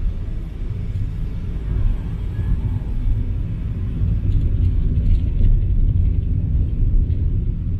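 Car interior driving noise: a steady low rumble of the engine and tyres on the road, heard from inside the cabin.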